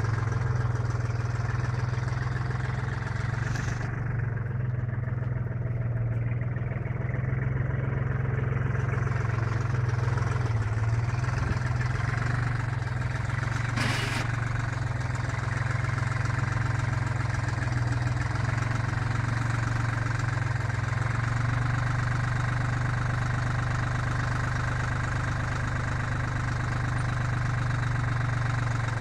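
Compact tractor's diesel engine running steadily, driving a homemade PTO-powered post-hole auger boring into soil. A single sharp click about halfway through.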